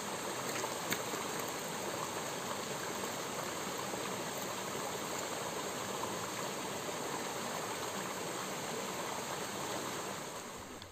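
Small rocky stream with a little waterfall spilling into a pool: a steady rush of running water.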